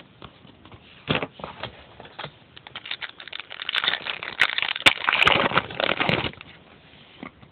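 A foil card-pack wrapper being torn open and crinkled, with the cards flicked and handled: scattered light clicks, then a dense crinkling from about three and a half seconds in that stops a little after six seconds.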